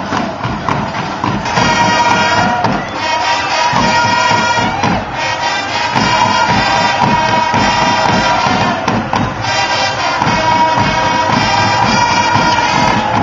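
Parade band music: drums beating a steady marching rhythm with wind instruments playing a melody over it, the melody coming up strongly about a second and a half in.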